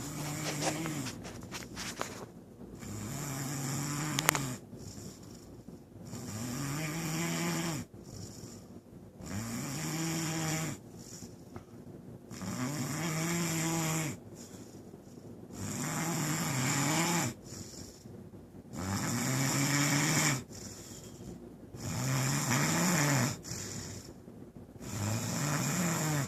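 A person snoring deeply and steadily, one long pitched snore about every three seconds, each rising and then falling in pitch.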